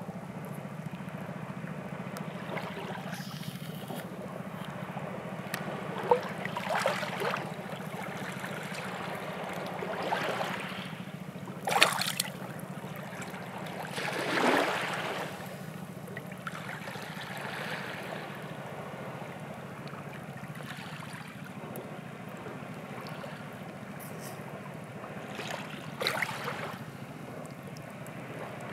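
Raw squid being skinned by hand: a few short, wet squelching and peeling sounds, one with a sharp click about twelve seconds in. Behind them runs a steady water ambience with a constant low hum.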